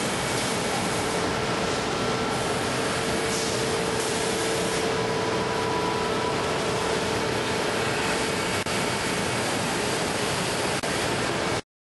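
Busellato JET Optima CNC machining centre running a cycle on cabinet-door stiles and rails: steady machining noise with a constant mid-pitched whine. It cuts off suddenly near the end.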